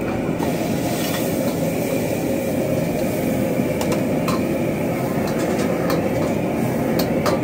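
Steady rushing noise of a high-powered wok burner's flame while a stir-fry cooks in the wok. A few sharp clinks of the metal ladle against the wok come in the second half.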